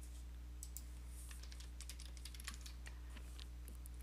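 Faint, irregular keystrokes on a computer keyboard as a password is typed, over a steady low electrical hum.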